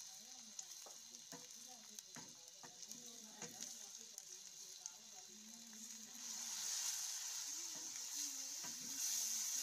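Onions and green chillies frying in oil in a karahi, stirred with a wooden spoon that clicks and scrapes against the pan. About six seconds in, the sizzling grows louder and more hissy.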